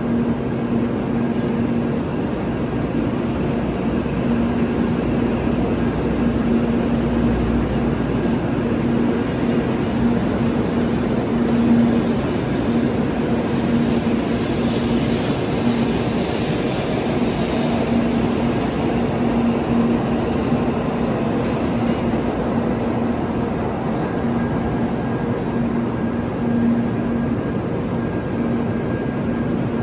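Shinkansen train moving slowly alongside the platform: a steady hum from its running gear under a rushing noise that swells about halfway through.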